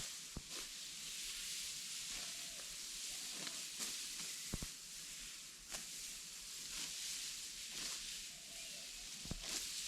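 Rice stalks being cut by hand with a serrated sickle: a few crisp snaps over a steady high hiss.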